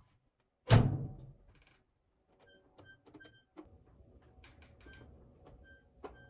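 A single heavy thunk about a second in, then scattered light clicks and knocks over faint background music.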